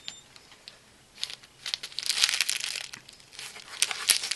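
Clear plastic packet of sequins crinkling as it is handled and flexed in the hands, in irregular crackles that start about a second in and are loudest around the middle and near the end.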